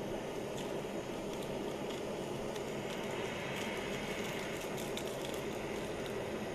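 Handheld gas torch burning with a steady rushing hiss as its blue jet flame plays on a metal slab. A few faint ticks come in the second half.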